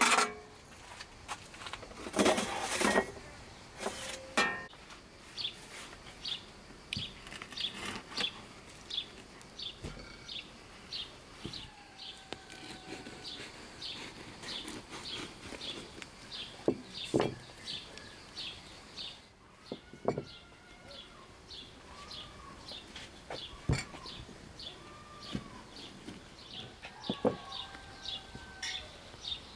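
Birds chirping over and over, short high chirps about twice a second, with a few short whistled notes from another bird. Loud metal clatters of a baking tray near the start, and scattered knocks and scrapes later as the baked bread is cut with a knife.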